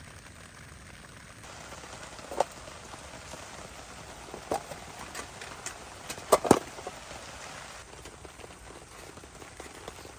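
Heavy rain falling steadily, with a few sharp snaps or knocks: one about two and a half seconds in, one around four and a half seconds, and a louder close pair a little after six seconds.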